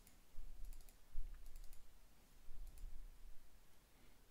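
Computer mouse clicking in several short groups of quick clicks, double-clicks among them, as folders and a log file are opened.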